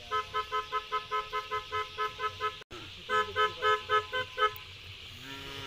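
A vehicle's electronic horn beeping in rapid pulses, about five beeps a second, in two runs with a short break between them.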